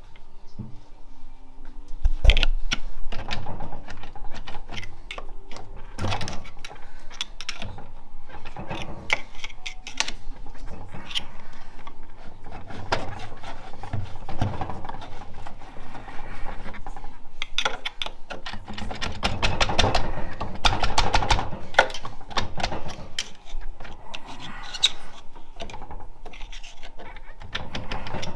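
Clinks and knocks of metal transmission parts and hand tools as a 4L65E automatic transmission is taken apart, with a fast run of clicks about twenty seconds in.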